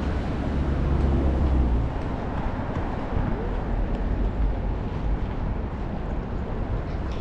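Road traffic: a vehicle engine running close by for the first couple of seconds, then a steady wash of passing traffic.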